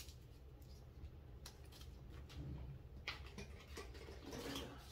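Faint scraping and a few separate sharp clicks of a tube of clear brow gel being pried out of a box that fits it exactly, with a short scratchy rustle near the end.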